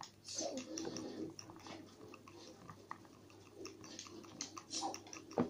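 Wooden craft stick stirring sticky slime in a plastic bowl: a quiet, irregular run of small wet clicks and squelches, with a sharper knock against the bowl near the end.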